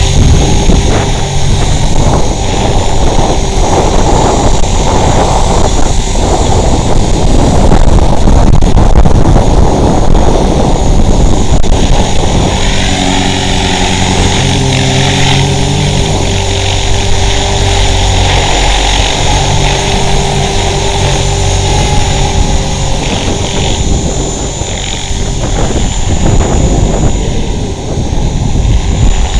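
450-size electric RC helicopter hovering, its motor and rotor running steadily as the pitch shifts slightly. Gusty wind buffets the microphone throughout.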